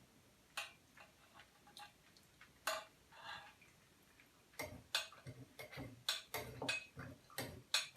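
Kitchen dishes and utensils clinking and knocking as the hot fig milk is readied for straining. A few scattered taps at first, then a quick run of knocks from about four and a half seconds in.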